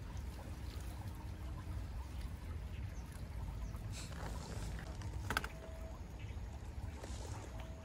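Shallow stream flowing over stones, a steady low rumble, with a few short clicks and rustles from a nylon gill net being handled as fish are picked out of it; the sharpest click comes about five seconds in.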